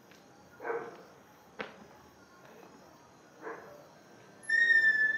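A dog barks twice, a few seconds apart, with a single click in between. Near the end a loud, steady high-pitched note starts and holds.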